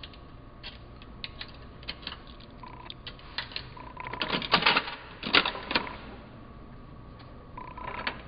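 Sugarloaf capsule vending machine being operated: a run of sharp mechanical clicks and ticks with several short electronic beeps, busiest about four to six seconds in.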